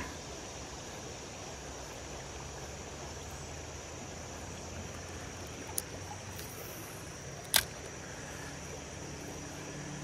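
Steady rush of shallow creek water flowing around the wading angler, with a sharp click about seven and a half seconds in and a smaller one just before it.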